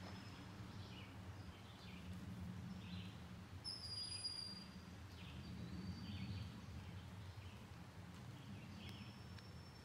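Faint outdoor ambience: a low steady rumble with small bird chirps about once a second and a thin high whistled note about four seconds in.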